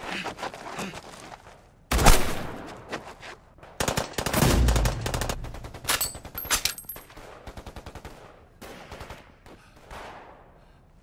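Film battle gunfire: a single loud shot about two seconds in that rings on, a heavier boom with a deep rumble around four seconds, then a rapid machine-gun burst around seven seconds, with scattered shots between.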